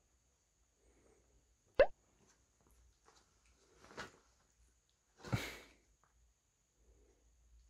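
Bichon Frise reacting to being poked: a short sharp grunt about two seconds in, then two breathy huffs, the second longer and fuller, as it shifts on the bedding.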